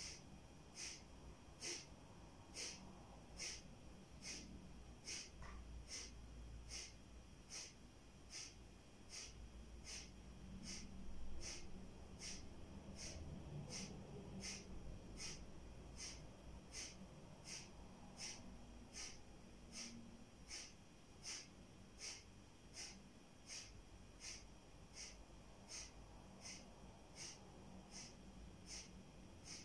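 Kapalabhati pranayama breathing: short, forceful exhalations pushed out through the nose in a steady rhythm, a little more than one puff a second, like a bellows.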